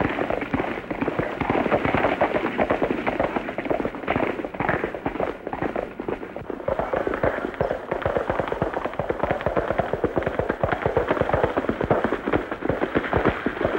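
Two horses galloping on a dirt road: a fast, continuous clatter of hoofbeats, heard through an old film's muffled, narrow soundtrack.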